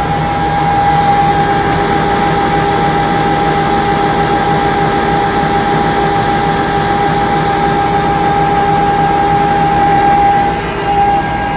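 A steady mechanical whine from the fuel tanker's hydraulically driven pump, running off the truck's engine with the clutch engaged, over the hum of the engine. The whine falters briefly near the end.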